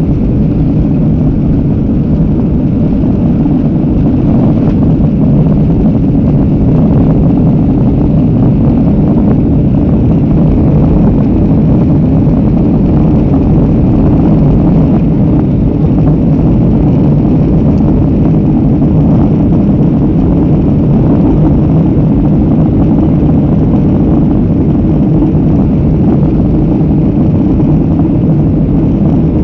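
Passenger aircraft taking off: a loud, steady, low rumble of the engines and airflow that holds even throughout.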